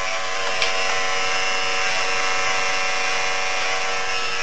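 Electric hair clippers running with a steady buzz, with a brief click about half a second in.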